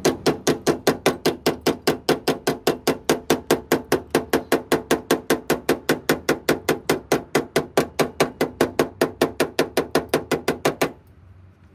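Rapid, steady hammering on the rusty sheet-steel floor panel of a truck cab, several metal-on-metal blows a second, each with a short ring. The blows stop abruptly about eleven seconds in.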